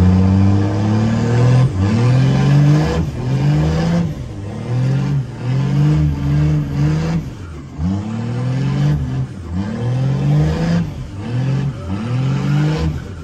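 Ram pickup truck's engine, heard from inside the cab, revving hard and easing off again and again, its pitch rising and falling about once a second while the truck is driven around the pad.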